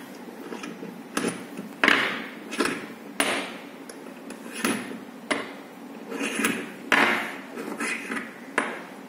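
Metal slotted weights and a weight hanger being handled on a wooden table: about ten sharp metallic clinks and knocks at irregular intervals, each ringing briefly.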